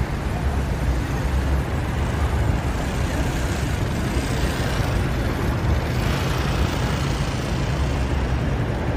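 Steady low rumble of vehicle engines and traffic noise, with no distinct events.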